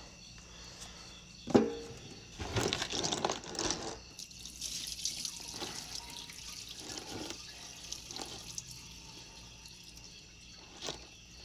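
Cleaning solvent being poured off a container of bolts into an oil drain pan, trickling and splashing, with a few knocks as the bolts and container shift.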